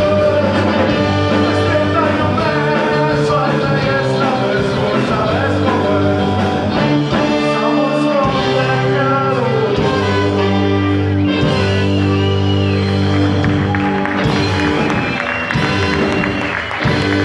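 Live rock band playing, with electric guitar, drum kit and saxophone under a sung vocal line.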